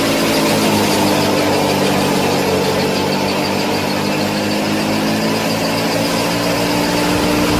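Small DC gear motors of a homemade mini harvester model running with a steady whine; the pitch steps up slightly about a second in.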